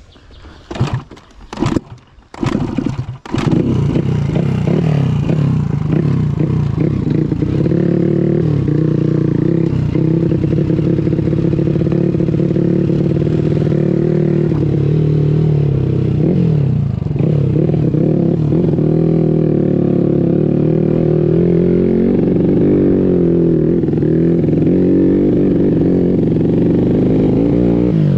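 Modified 130cc underbone (bebek) motorcycle engine running as it is ridden on a dirt track, the engine note rising and falling with the throttle. A few loud, short bursts come in the first three seconds, before the steady engine sound sets in.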